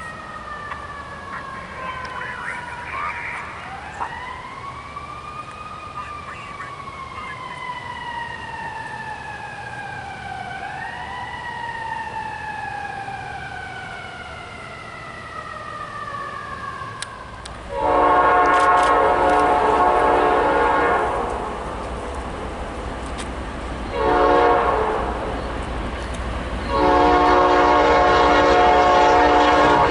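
An emergency-vehicle siren wails, its pitch sliding slowly down and swooping back up twice. Then, over the low rumble of an approaching train, a locomotive's multi-chime air horn sounds a long blast, a short one and another long one, the loudest sound here.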